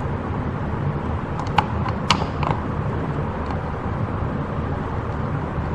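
A screw being driven by hand with a screwdriver: a few light clicks and creaks about one and a half to two and a half seconds in, over a steady background hum.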